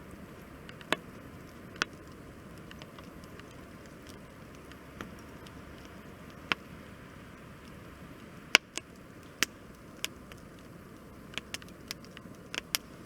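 Wood campfire crackling: a steady low hiss of burning with sharp, irregular pops. The loudest comes about eight and a half seconds in, and a quick run of pops follows near the end.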